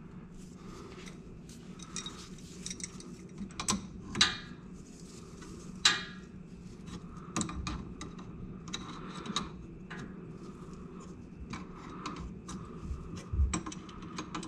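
Small metallic clicks and scrapes as a differential cooler line fitting is threaded back in by gloved hands, with sharper clicks about four and six seconds in. A steady low hum runs underneath.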